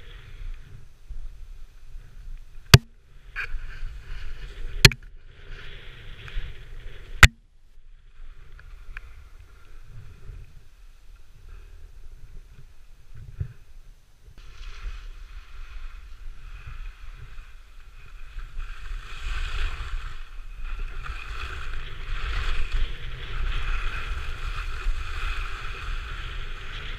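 Skis sliding and scraping over snow, with three sharp clicks in the first few seconds. About halfway through the sliding hiss and a low wind buffeting on the microphone grow louder, as from picking up speed.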